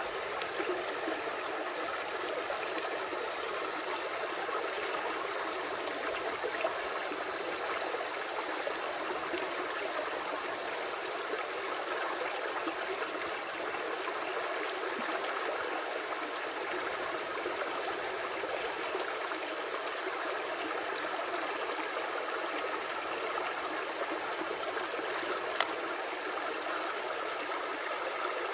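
Creek water flowing and trickling over rocks, a steady, even rush. A single sharp click sounds about 25 seconds in.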